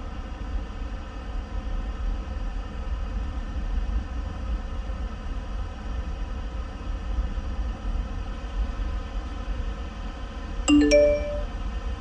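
Steady low hum of room noise, then about a second before the end a short two-note ding-dong chime from the Mac as the software installation completes.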